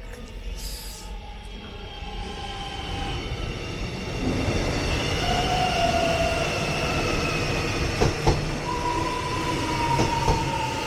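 An electric suburban commuter train runs through the station, growing louder as it approaches. High whining and squealing tones fall slightly in pitch over a low rumble, and a few sharp clacks of wheels over rail joints come about eight and ten seconds in.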